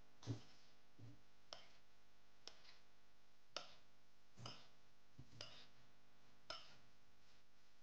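Faint, sparse clicks and taps, roughly one a second: a metal spoon knocking against a stainless steel frying pan as sauce is spooned over chicken breasts.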